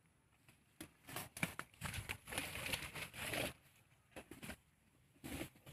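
Close, crinkly rustling and scraping in irregular bursts, busiest from about a second in to past halfway, from a young elephant's hide brushing against the phone and its microphone.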